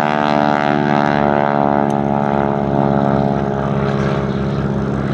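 Boeing Stearman biplane's radial engine and propeller droning steadily in flight.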